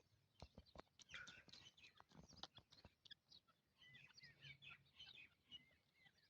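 Faint, scattered bird chirps with a few soft clicks, quiet overall.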